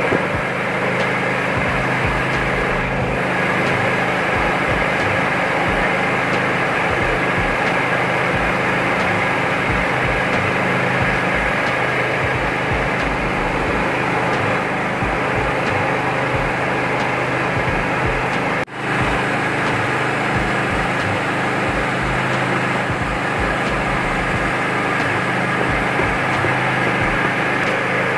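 A mini multi-function rice huller-polisher (820 Pro) running steadily under load, milling paddy. There is a constant motor hum and the dense rushing rattle of grain passing through the rollers, with rice streaming from the outlet and bran blown into the sack. The sound breaks for an instant about two-thirds through.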